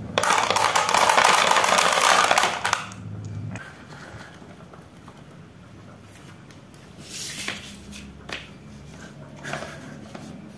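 A rampful of marbles released at once, clattering down a wooden wave-slope ramp into the bed of a plastic toy dump truck: a dense rattle of many clicks for about three seconds that then thins out. Later come a few single knocks and scrapes of wooden blocks being set down.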